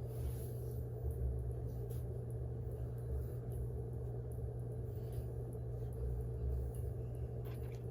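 Steady low background hum, with a few faint light clicks.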